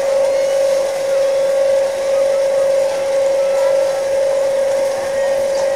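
A loud, steady hum held at one mid pitch, unchanging throughout, with faint voices of people in the background.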